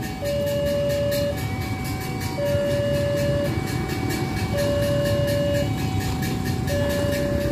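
Level crossing warning alarm sounding its two-tone signal, alternating a lower and a higher tone about once a second, a sign that a train is approaching. A low engine rumble runs underneath.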